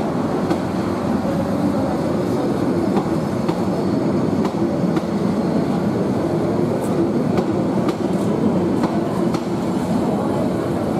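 Bangladesh Railway intercity passenger coaches rolling past on the track: a steady rumble with repeated clicks of the wheels over the rail joints.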